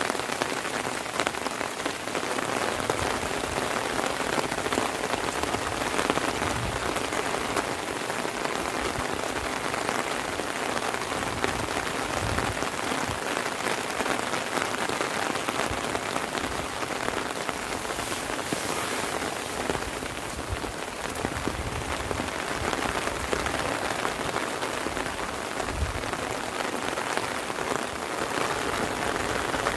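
Heavy rain falling steadily, a dense patter of drops hitting the surfaces around, with occasional soft low thuds underneath.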